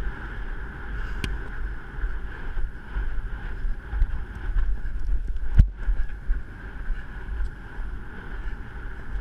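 Wind buffeting the microphone of a rider galloping on horseback, a steady low rumble with a rushing hiss above it. One sharp knock comes a little past halfway.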